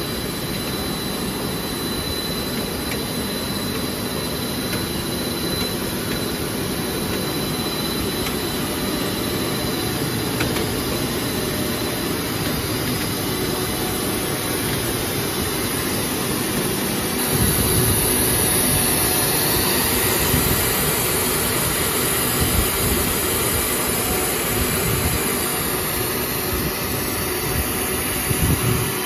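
PE pipe extrusion line running, a steady mechanical drone and hiss from its motors and pumps with a faint high whine. About two-thirds through it grows louder, with a lower rumble that surges unevenly.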